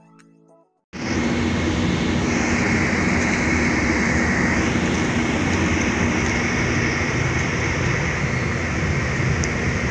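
Steady ship's machinery rumble and hiss with a constant low hum, starting suddenly about a second in after a brief silence.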